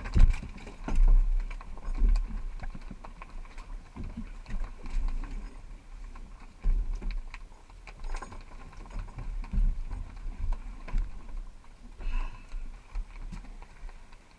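Irregular knocks and low thuds of people and gear moving about a boat deck close to the microphone, with a few short clicks.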